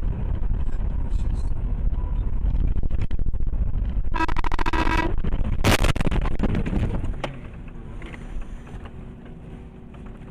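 Vehicle road and engine noise recorded from a dash cam, a steady low rumble. About four seconds in a pitched blare sounds for about a second, then a sudden loud bang comes just before six seconds; after about seven seconds the rumble drops to a quieter level.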